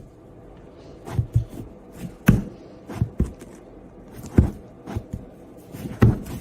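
A series of irregular thumps and knocks, about a dozen, spaced unevenly over a quiet background.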